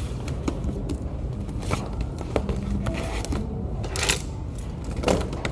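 Objects being handled on a wooden table: scattered clicks, taps and light scrapes from pens, a book and a clear plastic case, the sharpest two about four and five seconds in, over a steady low background hum.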